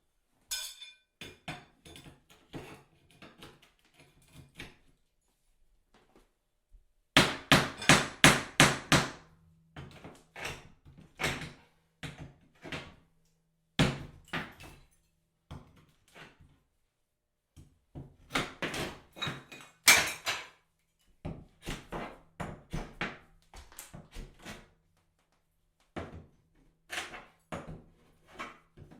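Bathroom tiles and drywall being knocked down with a hammer: irregular sharp knocks and cracks. About seven seconds in comes a quick run of half a dozen loud strikes, and a second loud cluster follows near twenty seconds.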